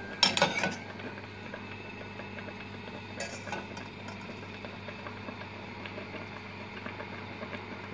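Butter and carob molasses simmering in a small cezve on the stove: a steady, faint crackle of fine bubbling. A few sharp clicks sound in the first second.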